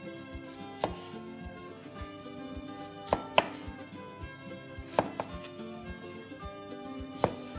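Knife chopping on a cutting board: a handful of single sharp strikes, irregularly spaced a second or two apart, over soft background music.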